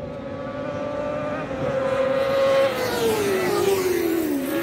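Racing motorcycle engines at high revs, growing louder, then falling in pitch from about halfway through as more than one bike is heard.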